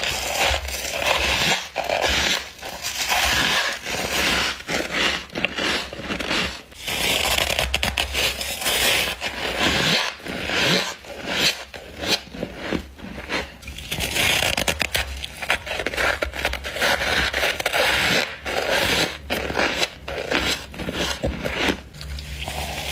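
Close-miked bites and chewing of frost: a dense run of crisp crunches and crackles, in bursts with short pauses between bites.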